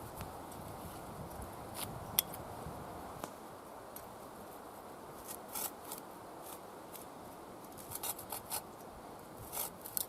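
A few short, sharp scraping strokes at irregular intervals, grouped near the middle and toward the end, over a steady wind rush.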